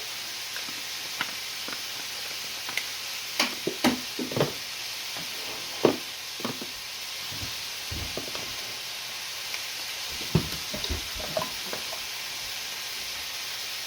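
Ground beef sizzling in a frying pan with a steady hiss, broken by scattered knocks and clicks as it is seasoned and worked in the pan.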